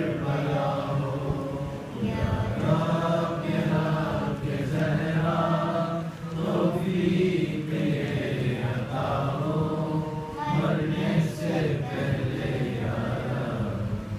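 A boy's voice chanting a munajat, a devotional supplication, in long melodic phrases of a few seconds each, over a steady low drone.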